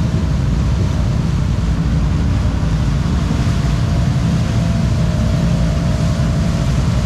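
ATV engine running hard under heavy throttle as the quad ploughs through a deep mud hole, its spinning tyres churning and throwing mud and water. Loud and steady throughout.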